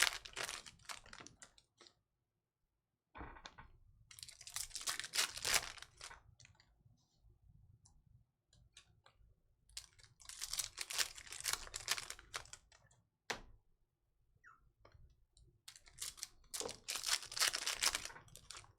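Trading-card packs and cards being handled: four short bursts of crinkling, rustling and clicking, roughly every five to six seconds, with scattered small clicks between.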